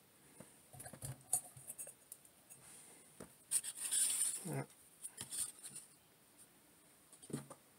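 Handling noise from a plastic action figure being picked up and turned: scattered light clicks and taps, with a longer scraping rustle about halfway through.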